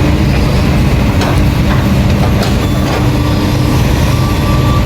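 Heavy diesel excavator engine running steadily under load, with a few short, sharp metallic knocks in the middle.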